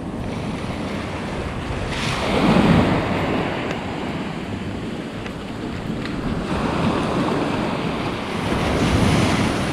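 Wind buffeting the microphone over the wash of sea water, swelling louder twice: about two and a half seconds in and near the end.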